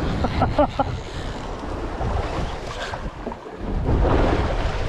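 Wind buffeting the microphone and sea water washing around a small boat. There is a louder rush about four seconds in, and a few short voice calls in the first second.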